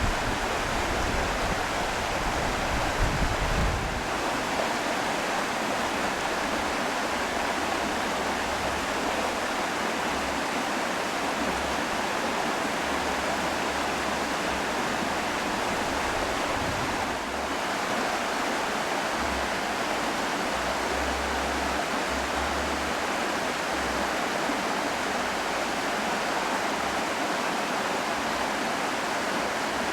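Mountain river rushing over rocks: a steady, even rush of water, with some low wind rumble on the microphone in the first few seconds.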